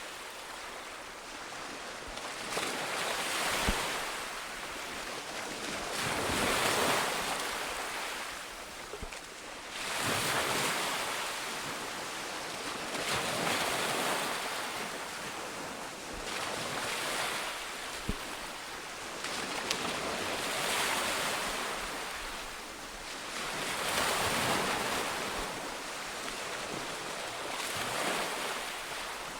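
Sea waves breaking in surf, each wash swelling and falling back about every three to four seconds.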